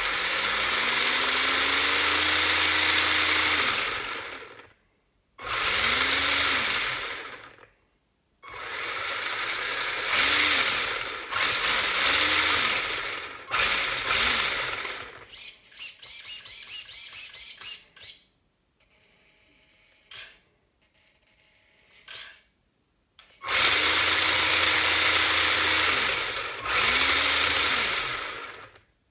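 HBX Spectre 1/14 4WD RC truck's brushed electric motor and geared drivetrain revving with the wheels spinning freely in the air: a whine that rises and falls with each throttle pull. Several pulls of a few seconds each, a run of quick short blips in the middle, a brief lull, then two more long pulls near the end.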